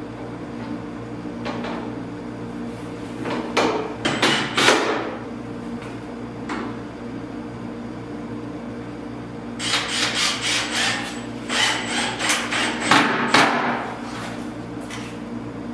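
Sharp knocks on a wooden door frame during installation: a few strikes about four seconds in, then a rapid run of repeated strikes in the second half.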